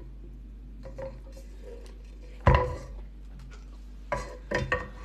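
A heavy cooking pot set down on the table with one sharp knock, followed a little later by a few light clinks of utensils against ceramic bowls.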